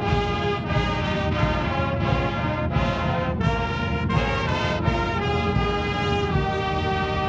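College marching band's brass section playing the national anthem in slow, sustained chords that change every second or so.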